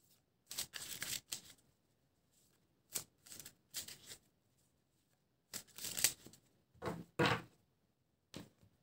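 A deck of tarot cards being shuffled by hand in several short, papery bursts with brief pauses between them.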